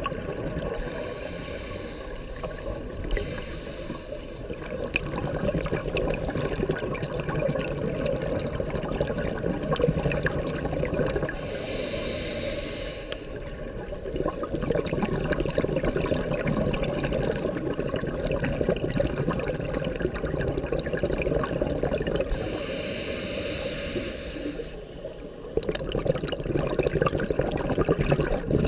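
Underwater ambience on a scuba dive: a steady rushing, crackling background, broken a few times by the loud bubbling rush of a diver's scuba regulator exhaust.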